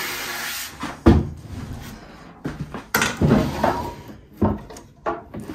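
Several knocks and bumps on a solid-wood china cabinet as it is handled: one about a second in, a cluster around three seconds, and more near the end.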